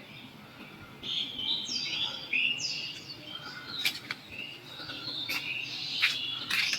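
Birds chirping: a run of short, high, falling chirps starting about a second in, with a few sharp clicks among them.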